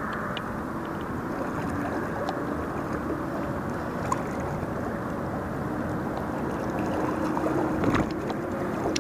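Steady rush of shallow river current. A brief, louder splash comes near the end.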